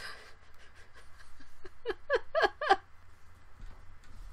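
A woman laughing: faint breathy sounds, then a quick run of about four giggles about two seconds in.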